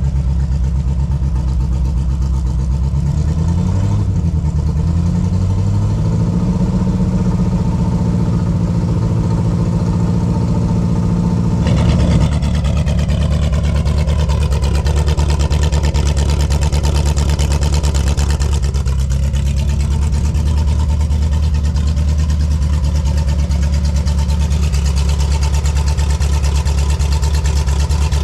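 Car engine pulling away, its pitch climbing in a few steps, then running steadily at a low, even drone.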